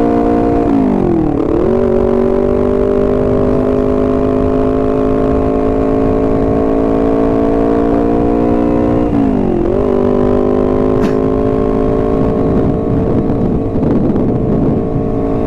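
Honda CBR250RR's parallel-twin engine running steadily at cruising revs, its pitch slowly climbing and twice dipping briefly before picking up again, about a second in and again about nine seconds in.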